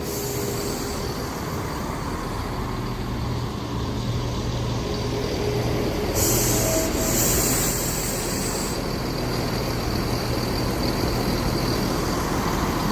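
Class 168 diesel multiple units at the platform, their diesel engines running with a steady low hum, and a loud hiss of air about six seconds in that lasts a couple of seconds.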